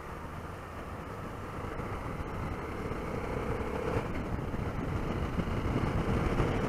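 Honda XRE 300's single-cylinder engine running under way, heard from the rider's helmet camera with road and wind noise, growing gradually louder.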